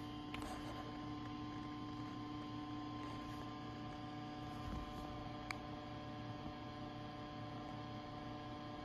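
Steady electrical hum made of several held tones, with one sharp faint click about five and a half seconds in.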